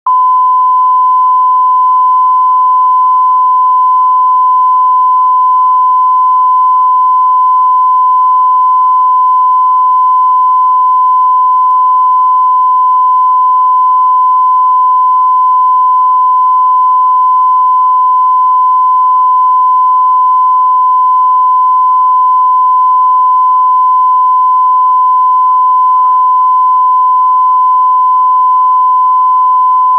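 Videotape line-up test tone: one loud, steady pitch held without a break, the reference tone that goes with colour bars at the head of a tape.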